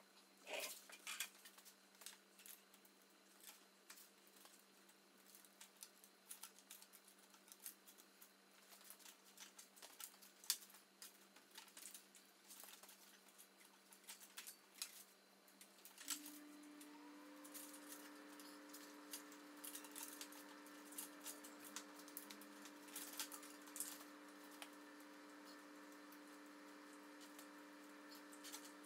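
Scattered light clicks, taps and rattles of a bicycle's parts being handled while its rear wheel and chain are worked on. About halfway through, a steady low hum starts, rising briefly as it comes on, and continues under the clicks.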